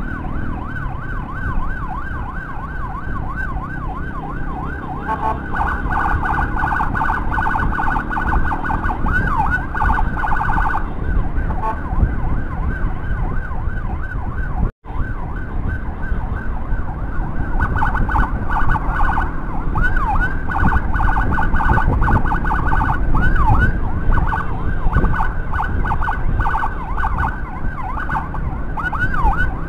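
Electronic emergency siren wailing in quick up-and-down sweeps, over the low, steady noise of a motorcycle engine, tyres and wind. The sound cuts out for an instant about halfway through.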